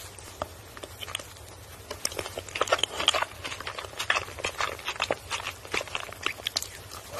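Close-miked mouth sounds of eating ice cream mochi: a quick run of short smacks and chewing clicks, starting about two seconds in.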